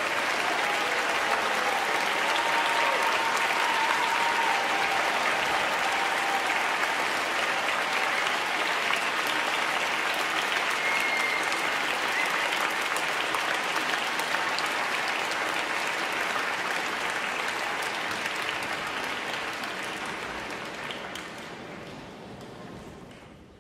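Large audience applauding, a dense steady clatter of clapping, with a few voices calling out in the first seconds; the applause fades out near the end.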